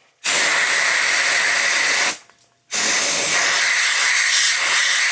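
Aerosol can of compressed air spraying in two loud, steady bursts of hiss about two seconds each, with a short gap between, clearing test smoke out of a smoke detector.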